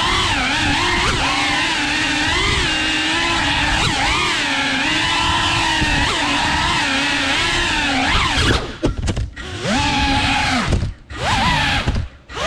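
FPV cinewhoop quadcopter's brushless motors and ducted propellers whining, the pitch rising and falling with throttle. Near the end the throttle is cut a few times, so the whine drops almost away and spools back up.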